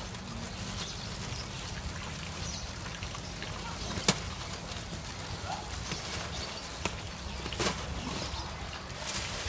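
Clear plastic bag with a caught fish and water in it being handled at the neck, with a few sharp crinkles and faint water movement over a steady low background rumble.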